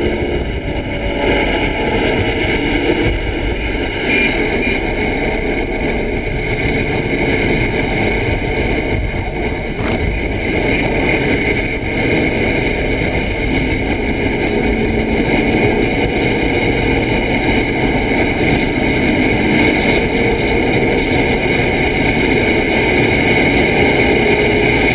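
CB radio receiver on channel 19 giving off steady static and hiss with a band of steady whining tones, no one talking on the channel. A single sharp click about ten seconds in.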